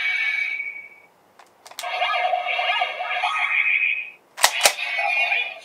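Memorial GabuRevolver toy gun playing its electronic sound effects for the KyoryuCyan 'Armed On' mode. A tune fades out about a second in, a few plastic clicks follow, then more electronic sound, broken by two loud sharp clicks about four and a half seconds in.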